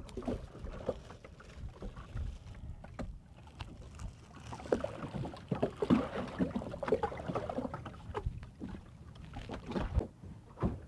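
Water lapping and slapping against the side of a small boat's hull, with irregular light knocks of the hull and gear.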